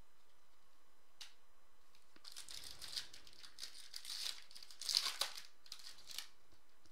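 Foil wrapper of a Topps Chrome football card pack being torn open and crinkled by hand: a few seconds of crackling with sharper crackles about five seconds in.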